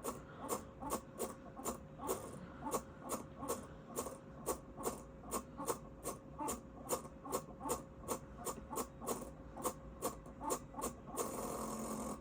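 Old laptop making a strange sound: sharp clicks repeating two to three times a second, somewhat unevenly, over a faint steady tone. Near the end the clicks stop and about a second of hiss follows.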